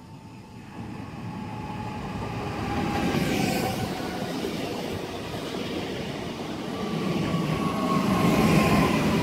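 Newag Impuls 31WE electric multiple unit pulling into a station and running past close by: wheels rumbling on the rails under a thin electric whine that slowly falls in pitch as the train slows. It grows louder as the train nears and swells twice as the cars go by.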